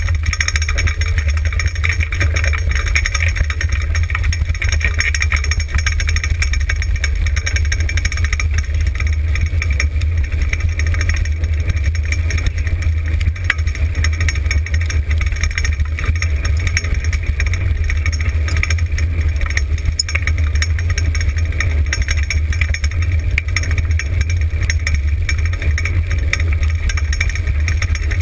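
Steady rumble and rattle of a dryland sled-dog racing cart rolling fast over a dirt trail at about 20 km/h, picked up by a camera mounted on the cart, with a heavy low rumble of wind and vibration on the microphone.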